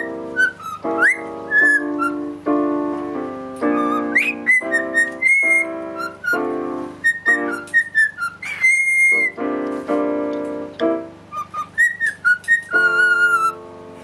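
Cockatiel whistling a tune of short high notes, some sliding up, along with chords played on a keyboard.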